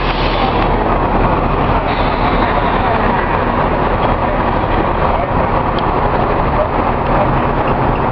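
Heavy diesel engine running steadily, an even, loud drone with a steady low hum.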